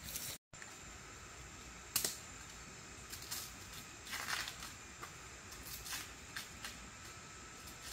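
Faint scattered clicks and rustles over a quiet steady background, with one sharp click about two seconds in and a longer rustle a couple of seconds later.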